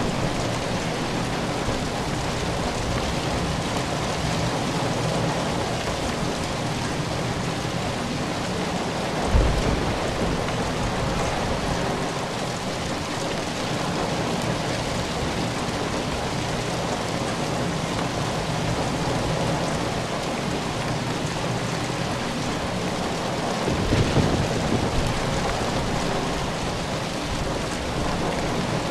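Steady, dense rainfall, with two brief low rumbles of thunder: one about nine seconds in and a longer one toward the end.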